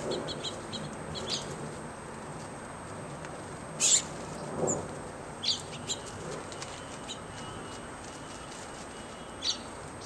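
Short chirps and chip calls of house finches and a white-crowned sparrow squabbling at a feeder, with wing flutters as birds dart in and out. A few quick chirps come in the first second or so, the loudest call about four seconds in, and more scattered calls follow, one near the end.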